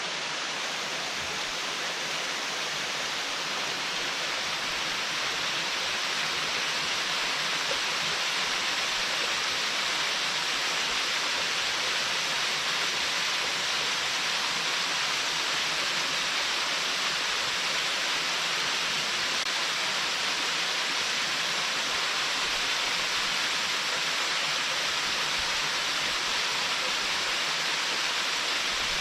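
Waterfall splashing down a rock face with no plunge pool: a steady, even rush of falling water.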